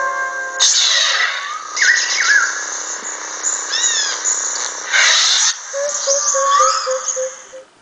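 Jungle ambience from a lightsaber sound font's background track: bird chirps and calls with short rising and falling whistles over a steady hiss, with two short bursts of louder hiss. It fades out near the end.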